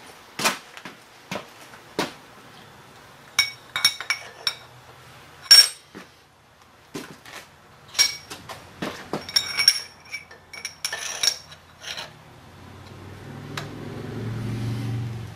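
Metal tools and parts clinking and clanking as they are handled and set down on a milling machine's steel table, in sharp separate knocks with a short metallic ring. A low hum swells over the last few seconds.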